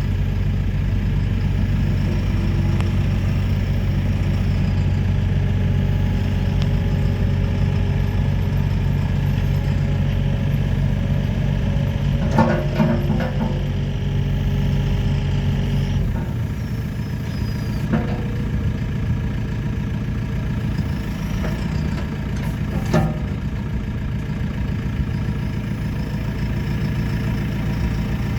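A JCB 3CX loader backhoe's diesel engine running steadily. Its note drops to a lower, quieter run about two-thirds of the way through. A few short knocks are heard around the middle and near the end.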